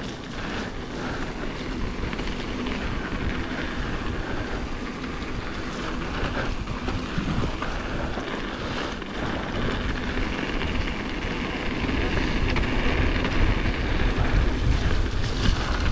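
Mountain bike rolling fast down a gravel fire road: tyres crunching over loose gravel, small rattles from the bike, and wind buffeting the microphone. The noise grows louder over the last few seconds.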